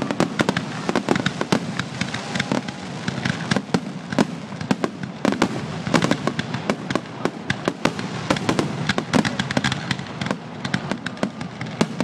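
Fireworks display going off: a dense run of sharp bangs and crackles, several every second, over a low rumble.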